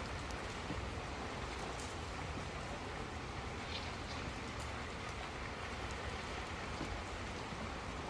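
Steady hiss of running water, with a few faint ticks scattered through it.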